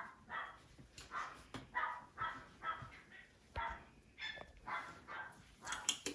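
Shih Tzu puppy barking in short, repeated yaps, about two a second.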